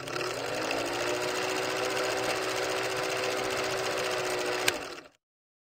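Film projector running sound effect: a rapid mechanical clatter over a steady hum that rises slightly in pitch as it starts up, with a sharp click near the end, then it cuts off suddenly.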